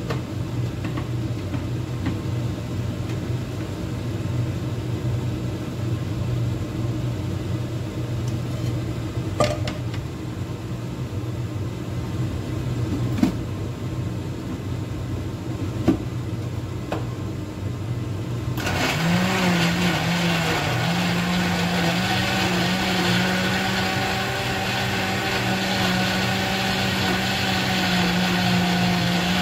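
Electric kitchen blender switched on about two-thirds of the way through, its motor running steadily as it purees onion, garlic, chillies, dried shrimp and grated coconut with a little water; the pitch wavers for a moment as it starts, then holds. Before it, a steady low hum and a few light knocks.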